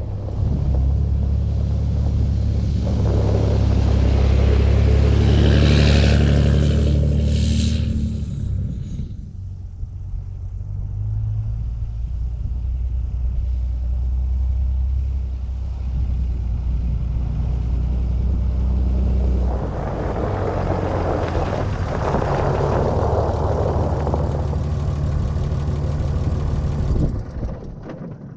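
Dodge pickup's Cummins diesel engine running while the truck drives, a steady low drone that swells louder twice as it pulls harder, then dies away near the end.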